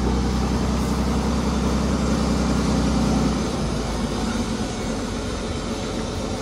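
Diesel engine of a multi-axle trial truck running as it rolls slowly past close by, a steady low engine note that eases off a little about three and a half seconds in.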